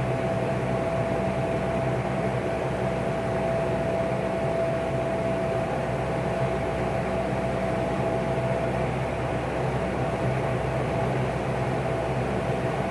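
Vintage Lakewood P-58 box fan motor turning a 20-inch LAU propeller at a steady speed: an even rush of air over a low motor hum and one constant tone.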